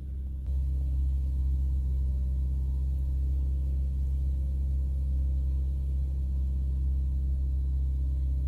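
Steady low rumble of a moving car heard from inside the cabin: engine and road noise with a deep, even hum. It gets louder about half a second in, then holds steady.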